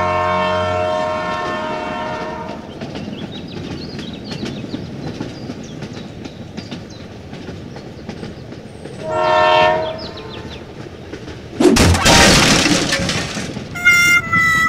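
Toy train running on plastic track: a horn chord sounds at the start and again briefly about nine seconds in, over a steady rattle of small clicks from the wheels and motor. Near the end a loud noisy burst lasts about two seconds.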